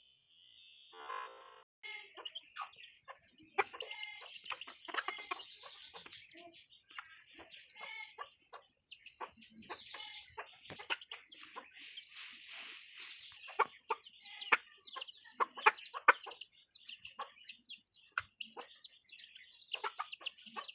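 Chickens clucking and chirping while pecking at puffed rice, with many quick sharp taps of beaks on the feed.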